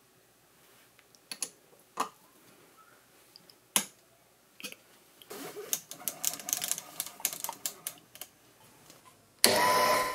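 Scattered light metallic clicks and taps as a small steel die is set in a machine vise, then a quick run of small clicks. Near the end the Proxxon FF 230 micro mill's spindle motor starts and runs steadily, ready to cut a V-groove in the die with a 6 mm end mill.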